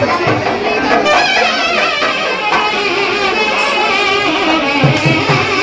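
Traditional South Indian, Carnatic-style music: a wavering, ornamented melody with a drum beat that drops back and returns near the end.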